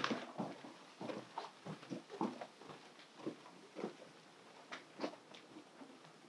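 Faint, soft footsteps of people walking along a carpeted hallway, irregular steps about two a second.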